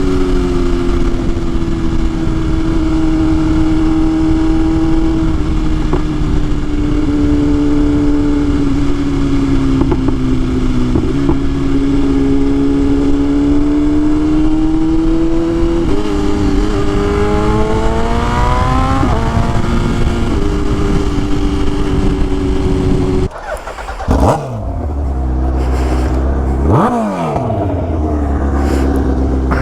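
BMW S1000RR inline-four engine running under way at a steady pitch that wanders slowly, then climbs as the bike accelerates about two-thirds of the way through. Near the end the sound drops away suddenly, then comes two quick falling sweeps in pitch, and it settles back to a steady tone.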